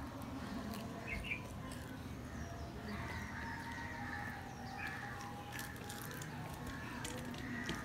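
Close-up chewing and mouth smacking of luchi, puffed deep-fried flatbread, with fingers tearing pieces off on a steel plate. Faint chirps sound in the background.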